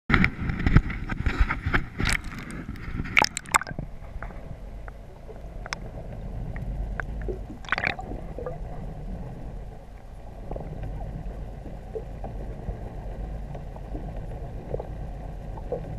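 Underwater sound on a diving camera: splashing and bubbling for the first three or four seconds as it goes under, then a steady low underwater rumble with scattered small clicks and a short crackle of bubbles about eight seconds in.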